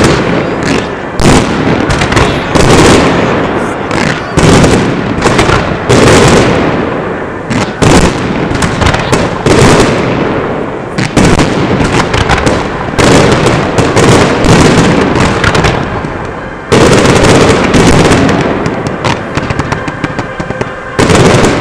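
A fireworks display going off in a dense barrage: aerial shells bursting in quick succession, loud sharp bangs following one after another, each trailing off briefly. About three quarters of the way through comes a couple of seconds of unbroken loud bangs, after which the reports thin out.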